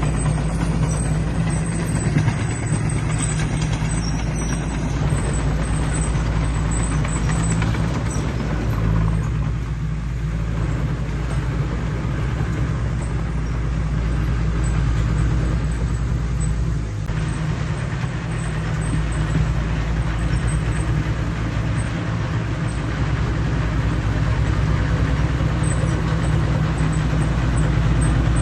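Heavy diesel earthmoving machinery running under load: a steady low engine drone with a rough mechanical noise over it, its loudness rising and falling slightly.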